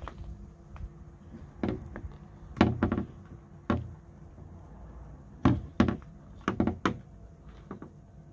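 Hands working the wiring connector loose inside a Mercedes keyless-go door handle recess: a string of irregular sharp knocks and taps, the loudest about two and a half seconds and five and a half seconds in.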